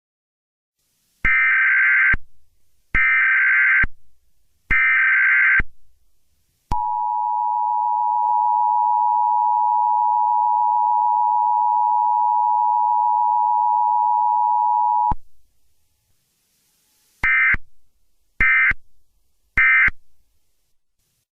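US Emergency Alert System test tones: three data header bursts of about a second each, then the two-tone attention signal held for about eight seconds, then three short end-of-message bursts.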